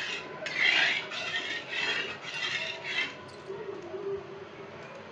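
A spatula stirring and scraping through thick tamarind pulp in a pan, with strokes about twice a second that die away a little past halfway.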